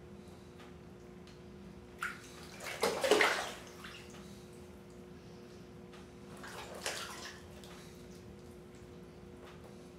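Bathwater sloshing and splashing in a filled tub as a person moves around in it, twice: a louder splash about three seconds in and a softer one around seven seconds.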